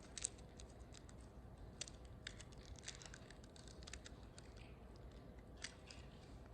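Faint, scattered light clicks and crinkles of communion bread and its small packaging being handled.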